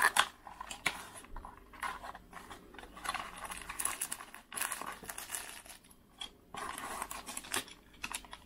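Small cardboard box being slid open and accessories in clear plastic bags handled: irregular rustling and crinkling of plastic packaging, with light scrapes and taps.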